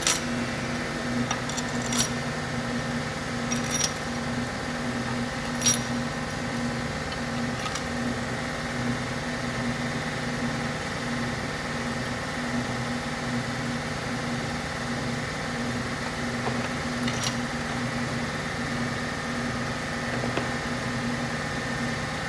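A motor runs steadily with an even, slightly pulsing drone. Small metal parts clink sharply now and then, four times in the first eight seconds and once more later on.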